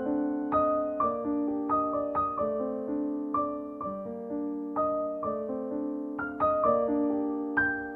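Background piano music: a gentle melody of struck notes that ring and fade, a new note about every half second.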